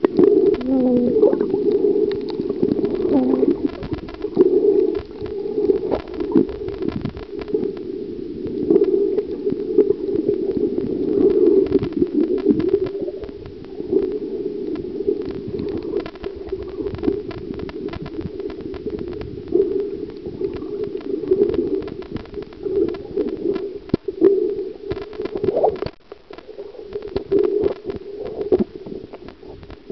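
Muffled gurgling and sloshing of seawater heard with the microphone underwater just below the surface. The sound swells and fades unevenly, with scattered small clicks and knocks.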